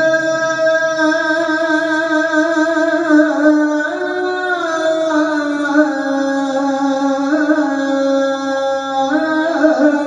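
A solo male voice chanting a sela, the Turkish Islamic call, in makam Hüseyni, holding long notes with ornamented melismatic turns every second or two.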